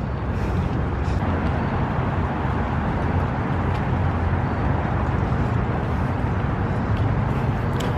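Steady outdoor background noise on a waterfront at night, an even hiss over a continuous low rumble.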